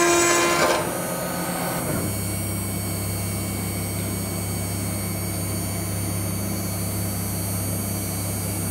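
Mechmate CNC router running with a steady low hum. A loud ringing tone with a high hiss stops about a second in, and the hum holds after that with no cutting noise on top.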